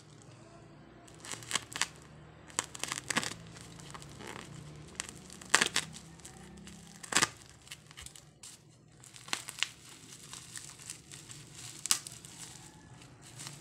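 Plastic parcel wrapping crinkling and crackling as it is handled, slit with a utility knife and pulled open, in irregular sharp crackles with some tearing.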